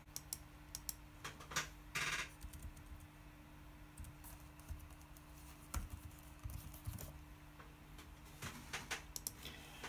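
Laptop keyboard keys clicking in short, irregular runs as a word is deleted and the word 'kitchen' is typed. A faint steady hum lies underneath.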